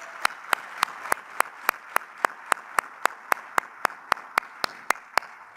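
Audience applause, with one person's claps close to the microphone standing out above it as loud, sharp, evenly spaced claps, about three or four a second. The general applause thins toward the end.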